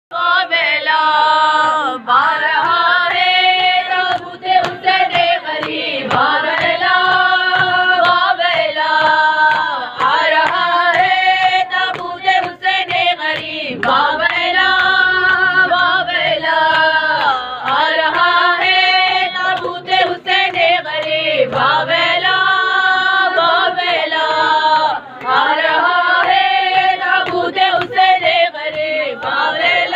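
Voices chanting an Urdu noha, a Shia mourning lament, in long held notes that bend up and down, phrase after phrase of a couple of seconds each.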